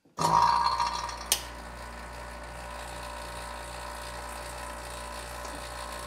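Elitech SVP-7 two-stage 7 CFM electric HVAC vacuum pump starting up: loud for the first second, then settling to a steady running hum, with a sharp click about a second in.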